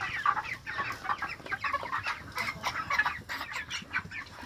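A flock of young white chickens calling, with many short, overlapping calls all the way through.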